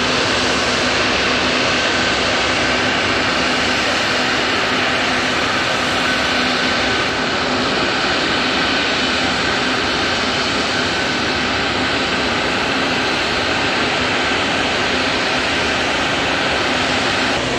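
Antonov An-124-100M's four D-18T turbofan engines running, a steady, unbroken jet roar with a faint steady whine over it.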